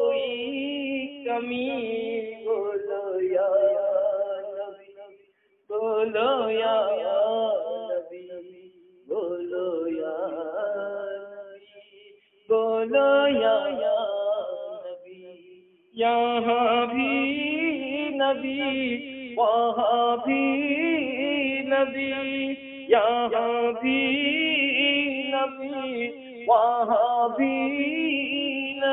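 A man singing a naat, an Urdu devotional song in praise of the Prophet, with no instruments, in long melodic phrases broken by brief pauses.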